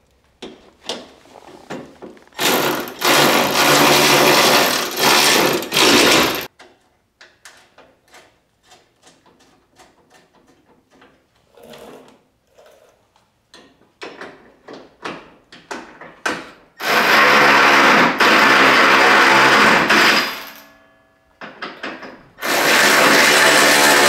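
Cordless electric ratchet running in three bursts of a few seconds each, driving in the bolts of the truck's front bumper support brackets. Light clicks and knocks of the tool and parts being handled come between the bursts.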